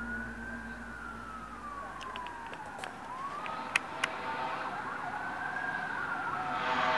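Eerie wailing 'strange sound' of the kind reported as sky trumpets: a slow, siren-like tone that glides down and back up over a steady droning hum, with two sharp clicks about four seconds in and a louder rushing noise swelling near the end.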